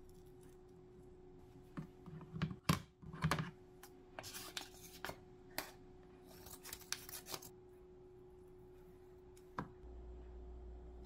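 Kitchen scissors snipping through strips of kimbap ham, with a cluster of sharp blade clicks a few seconds in, then crinkling and cutting of the plastic ham package; one more snip near the end.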